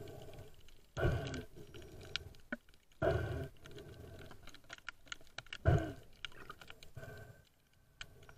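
Underwater noise from a diver moving in the water: a muffled rushing swish every two seconds or so, the loudest a little past halfway, with scattered faint clicks between.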